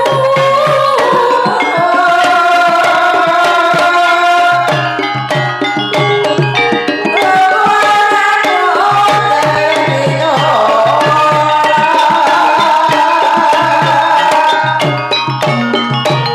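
Javanese gamelan music accompanying a kuda kepang dance: rapid, repeating low drum strokes under a loud melodic line that bends and glides in pitch, with metallophone notes over it.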